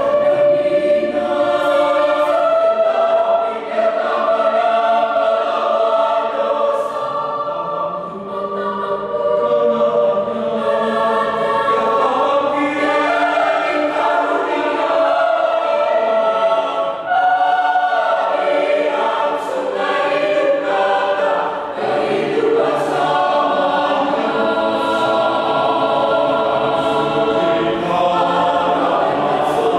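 Mixed choir of women's and men's voices singing a sacred piece in parts, in sustained phrases with brief breaks between them.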